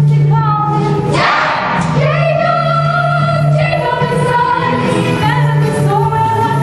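A chorus of mostly women's voices singing a show tune in long held notes over a band accompaniment, with a crash about a second in.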